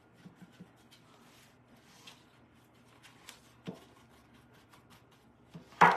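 Faint scratching and light taps of a small paintbrush dabbing paint into the corners of a metal baking pan, with one short louder knock just before the end.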